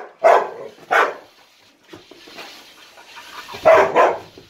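Pit bull barking at a remote-control backhoe toy: two barks in the first second, a pause, then two quick barks near the end.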